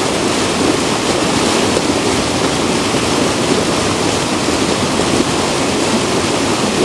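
Steady, loud rushing noise of a snowboard run in bad weather: wind over the microphone and the board sliding on snow.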